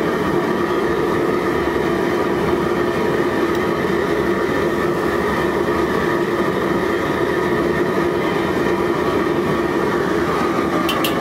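Steady loud roar of a commercial Chinese kitchen's wok burners and extractor fans, with a few constant tones running through it. A few sharp clinks come near the end.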